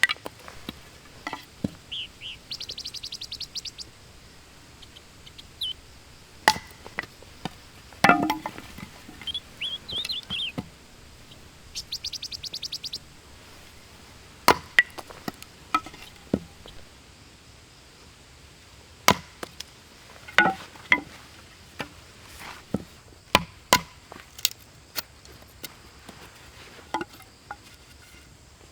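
Irregular sharp chopping strikes on wood, a dozen or so spread out with pauses between them. Scattered bird chirps and two brief rapid insect trills sound in between.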